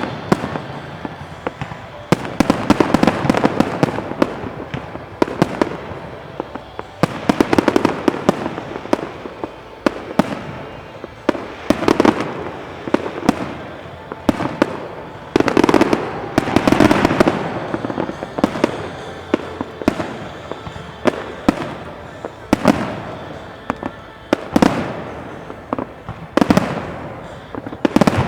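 New Year fireworks display: aerial shells bursting in volleys of sharp bangs every few seconds, with crackling and rumble between the volleys.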